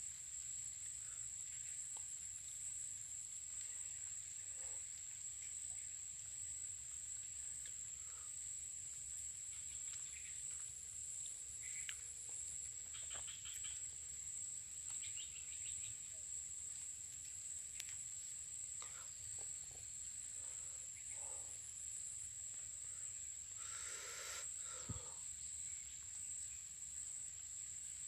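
Steady high-pitched insect chorus droning without a break, with scattered short calls from other animals over it, the clearest one about three-quarters of the way through.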